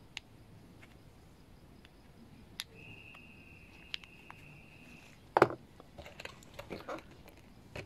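Small clicks and taps of a plastic-and-metal carburetor body and its parts being handled in rubber-gloved hands, the loudest a sharp click about five seconds in. A steady high tone sounds for about two seconds in the middle.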